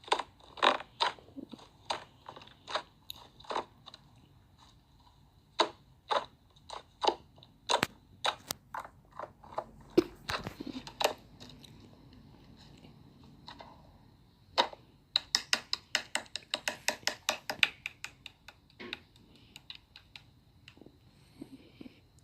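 Slime being squeezed and poked by hand, making sharp wet clicks and pops. They come scattered at first, then in a quick run of about eight a second for a few seconds.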